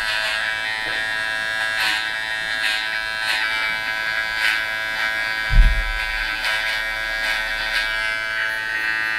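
Cordless metal-bodied T-blade hair trimmer running steadily with a high electric whine as it cuts along a shaved design line. There are faint ticks here and there and one low thump about five and a half seconds in.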